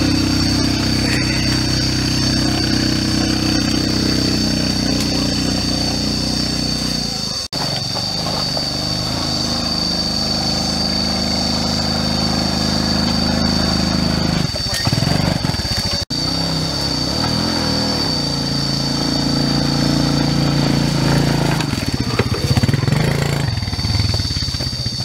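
Small motorcycle engines working along a rough dirt trail, their pitch stepping up and down as the riders throttle on and off. The sound cuts off abruptly twice, about seven and a half and sixteen seconds in.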